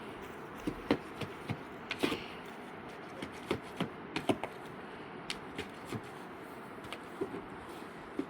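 Irregular light knocks and taps, about a dozen, unevenly spaced over a steady background hiss.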